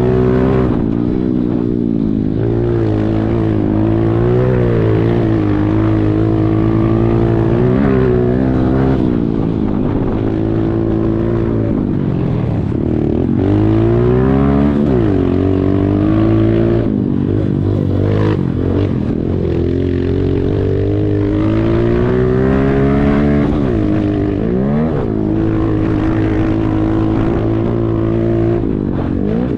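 Pit bike engine running hard under riding, its pitch climbing and dropping again and again with the throttle.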